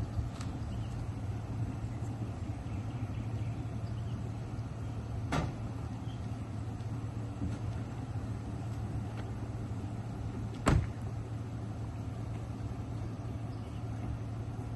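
Steady low hum of an idling vehicle engine, with two sharp knocks, one about five seconds in and a louder one about ten seconds in.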